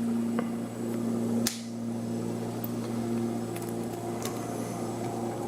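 Small metal clicks from handling a disassembled rim lock cylinder, with one sharp click about a second and a half in, over a steady low hum.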